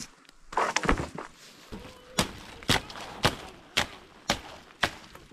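Machete chopping the branches off small trees: a few quick hits, then a steady run of single strokes about two a second.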